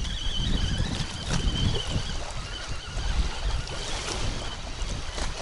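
Gusty wind buffeting the microphone, a steady low rumble that rises and falls, with small waves lapping at the water's edge.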